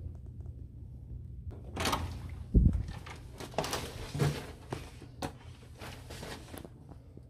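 A hotel room door being opened and walked through: a short rattle, then a loud thump about two and a half seconds in, followed by a few lighter clicks and knocks.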